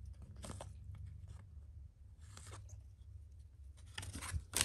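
Glossy trading cards sliding against each other as they are flipped through by hand: a few soft swishes, then one sharper snap near the end.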